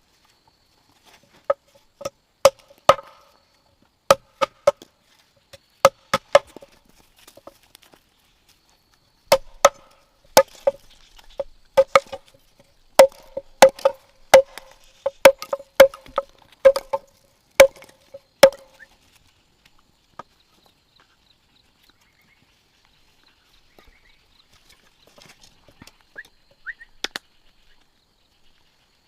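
A blade chopping into bamboo: a run of sharp strokes, each with a short hollow ring, coming irregularly and up to about two a second. They stop about two-thirds of the way through. A few faint knocks follow near the end.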